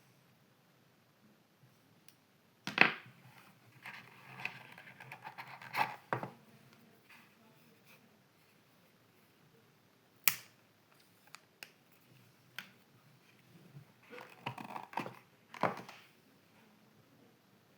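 Hand handling during an unboxing: several sharp clicks and snaps, the loudest about three seconds in and another near ten seconds, with two stretches of scratchy rustling and a few light ticks in between.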